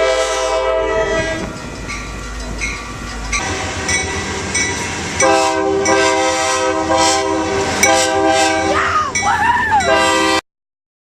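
A train's multi-tone air horn sounding: one blast ending about a second in, then a longer blast from about halfway through, over the clatter of wheels on the rails. All sound cuts off abruptly near the end.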